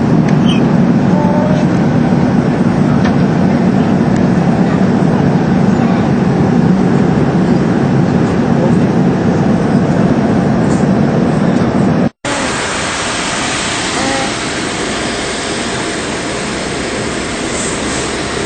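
Steady, loud drone of an airliner cabin in flight, heavy in the low rumble. About twelve seconds in it drops out for an instant and comes back hissier and with less rumble.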